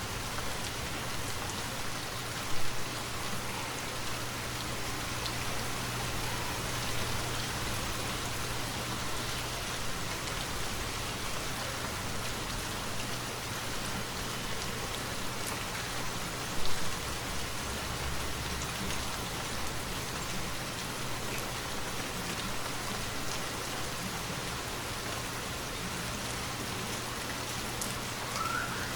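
Steady rainfall, a continuous even hiss of drops, with two brief louder taps about three seconds in and again about seventeen seconds in.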